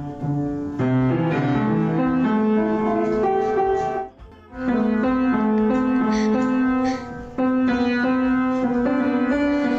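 Background piano music: a light melody in short phrases, breaking off briefly twice.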